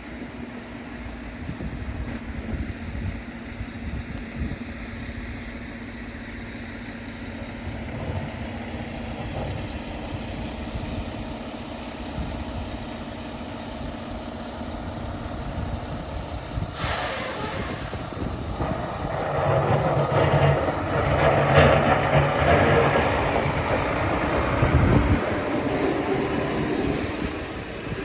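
City street traffic on a snow-covered avenue: a heavy vehicle's engine runs throughout and grows louder as it passes close in the second half. A short sharp hiss sounds about two-thirds of the way in.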